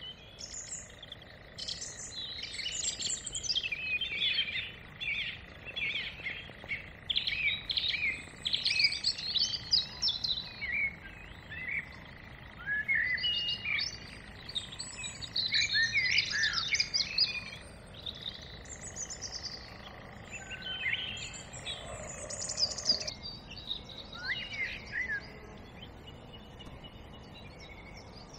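Dawn chorus: several songbirds singing in overlapping bursts of quick, twittering phrases. A faint, steady high-pitched tone lies under the song and cuts off a little over three-quarters of the way through.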